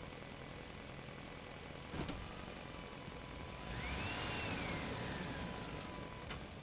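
Remote-control toy dump truck running with an engine-like motor sound as it drives along a plank, with a sharp click about two seconds in and a whistle-like tone that rises and falls in the middle.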